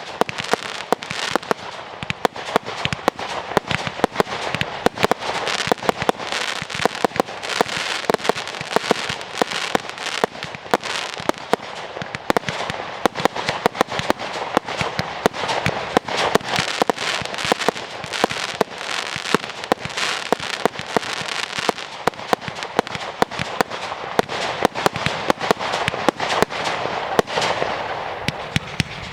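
Fireworks display going off without pause: sharp bangs several times a second over a continuous crackle.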